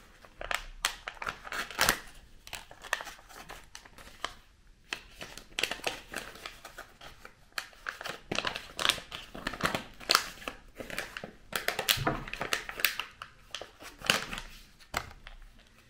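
Plastic packaging of an Air Up scent pod crinkling and rustling in the hands as it is opened, in quick irregular crackles.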